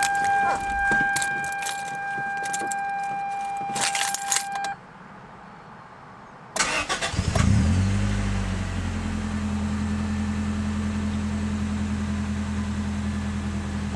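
1996 Toyota Corolla, converted to run on E85: a steady warning chime with keys clicking for the first few seconds, then, after a short pause, the starter cranks briefly and the four-cylinder engine catches about six and a half seconds in, flaring up and settling to a smooth, steady idle.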